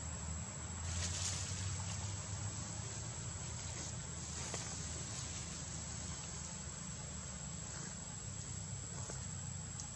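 Steady outdoor ambience of insects over a low rumble, with a few faint clicks about a second in, midway and near the end.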